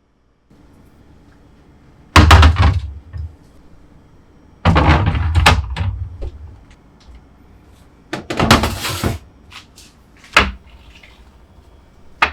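Kitchen cabinet doors or drawers being opened and shut: four knocks a couple of seconds apart, the first the loudest, the middle two each running on for about a second.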